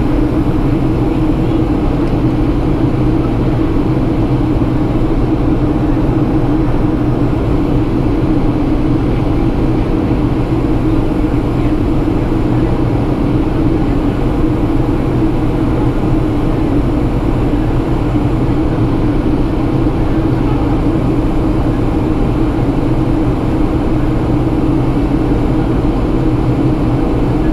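Cabin noise of a Boeing 757-300 in descent, heard inside the cabin: a steady rush of airflow and engine noise with a constant low hum, unchanging in level.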